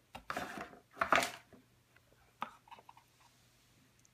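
Handling noise as the Lightning cable is picked up and brought to the dock: two short rustling swishes, the second louder, then a sharp click and a few faint ticks.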